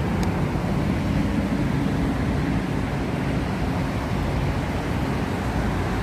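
Steady low rumbling ambient noise, even throughout with no distinct sounds standing out.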